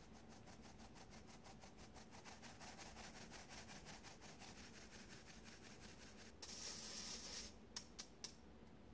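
Cake flour sifting through a fine stainless steel mesh sieve, the hand tapping the sieve at about six light taps a second. Near the end comes a brief louder hiss of flour shaken through the mesh, then three sharp taps on the sieve.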